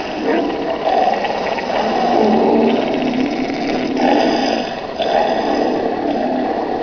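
A spooky sound-effects CD track, played back through a radio's speaker: a continuous rough, grating noise that swells and eases.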